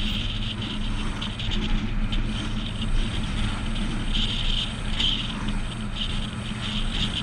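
Road noise from a load being towed behind a 2012 Chevrolet Silverado 1500: a steady rumble of tyres and wind with a continual light rattle.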